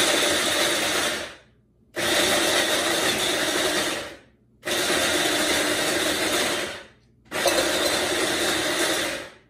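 Electric food chopper running in four bursts of about two seconds each, with short pauses between them, chopping pecans.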